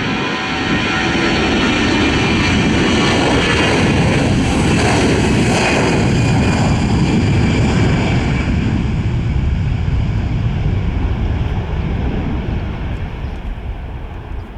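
Airbus A321 jet airliner departing under engine power: the turbofan rumble and high fan whine build up, peak about halfway through, then slowly fade as it moves away.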